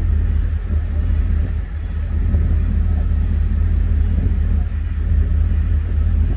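Steady low rumble on the open deck of a moving ferry: wind buffeting the microphone over the drone of the ship's engines.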